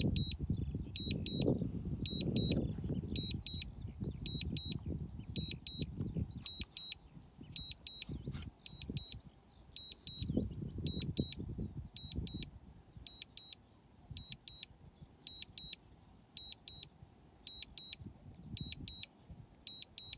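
DJI Air 2S remote controller beeping its return-to-home alert: groups of three short high beeps, about once a second. A low rumble comes and goes underneath, loudest in the first few seconds and again around ten seconds in.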